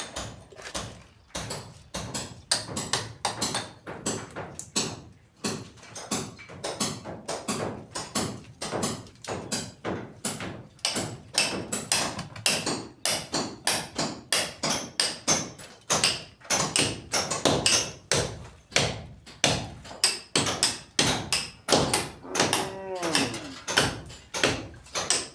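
Rapid, irregular knocking, several sharp strikes a second, of hand tools striking hard material. Near the end a farm animal gives one call lasting about a second.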